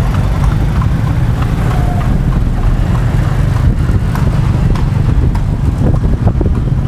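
Steady low rumble of wind buffeting the microphone, mixed with the road noise of a moving horse-drawn carriage.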